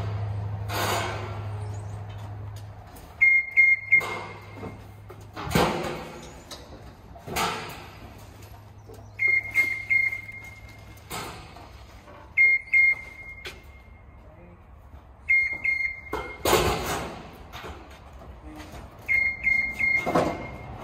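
Cordless screw gun driving self-drilling screws into steel wall panels: five short whining bursts of a few pulses each, a few seconds apart, with a couple of single knocks in between.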